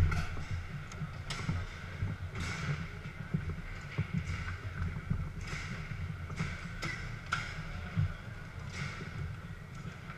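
Garlando foosball table in play: irregular sharp clacks and knocks as the ball is struck by the figures and the rods bump and rattle, over a low hall rumble.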